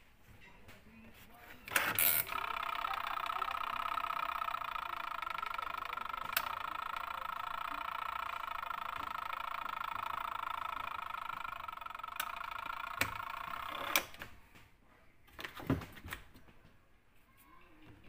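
A twin-tub washing machine switched on at its wash timer runs with a steady whir for about twelve seconds. It starts and stops with a click and gives a few light clicks along the way.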